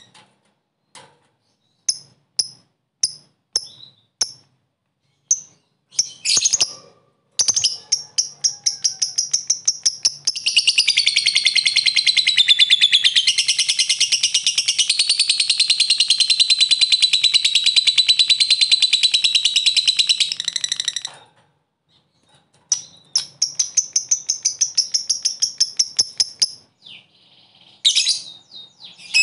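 A lovebird calling: a few sharp, separate high chirps, then a long, very fast rattling chatter held for about ten seconds (the 'ngekek' call of Indonesian lovebird keepers). It breaks off, and after a short pause a second, shorter burst of chatter follows, then a few more chirps near the end.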